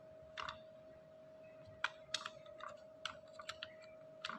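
Computer keyboard being typed on: faint, irregular keystrokes, one early tap and then a scattering of them through the second half, over a faint steady tone.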